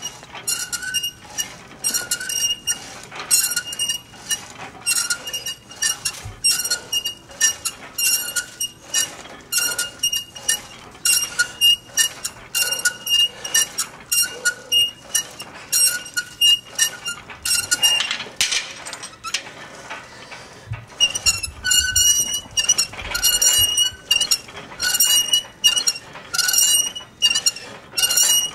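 Cable machine's metal D-handle and pulley squeaking and clinking with each rep of a one-arm cable exercise, in a quick even rhythm of about two sounds a second. Each sound has the same high metallic pitch. The rhythm stops for a few seconds about two-thirds of the way through, then picks up again.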